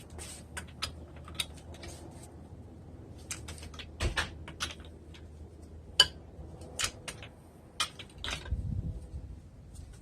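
Hand tools and metal parts being handled, giving irregular light clicks and clinks, with one sharper knock about six seconds in.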